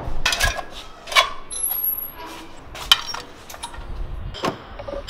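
Footsteps hurrying down a stairwell and out to the street, heard as a series of irregular knocks and clicks, with a brief high tone about a second and a half in.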